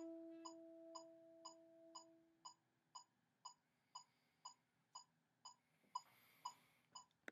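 An alto saxophone's final held note fades out over the first two and a half seconds, leaving a metronome clicking steadily at two ticks a second. A faint rustle comes near the end.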